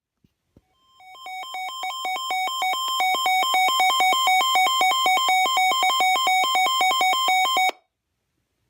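Electronic emergency alert tone: a rapid two-pitch warble alternating several times a second, building up in loudness over the first two seconds and then cutting off abruptly. Two faint clicks come just before it.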